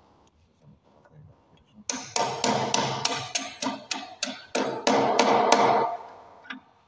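Hammer striking a bolt set through a park bench's wooden slat and steel frame: a quick run of ringing blows, about four a second, starting about two seconds in and stopping around six seconds in.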